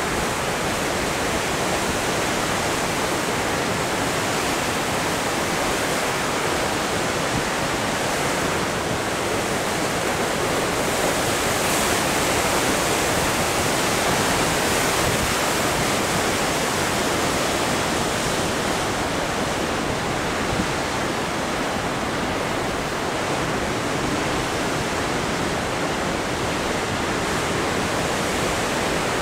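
Powerful ocean surf breaking over rocks: a steady rushing of white water, with no single wave crash standing out.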